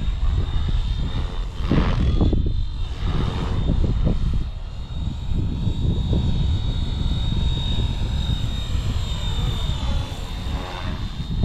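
Flywing FW450 V3 electric RC helicopter in flight, a steady high whine from its motor and rotor with pitch gliding up and down as it manoeuvres. Heavy wind rumble on the microphone underneath.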